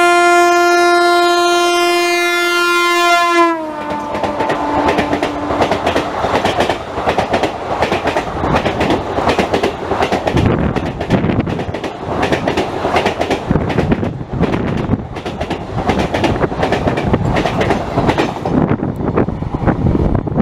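WAP-5 electric locomotive's horn sounding loudly for about three and a half seconds, its pitch dropping as the locomotive passes at speed. Then the double-decker coaches rush by with a fast, rhythmic clatter of wheels over rail joints, which eases near the end.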